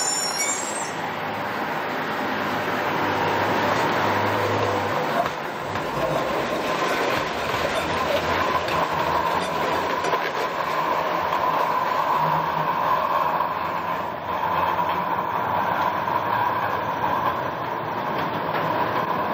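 Electric light rail car passing close by on street track and running into a tunnel: a steady rumble of wheels on rail. A steady whine grows in about halfway through.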